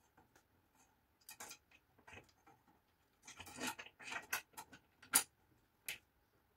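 Metal parts being handled: perforated steel plates, bolts and an aluminium extrusion rail clinking and scraping against each other. The scrapes cluster in the middle, and there are two sharp clicks near the end.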